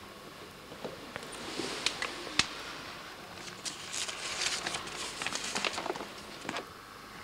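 Footsteps on a hard tiled floor, then a sheet of paper crackling and rustling as it is picked up and handled for a couple of seconds.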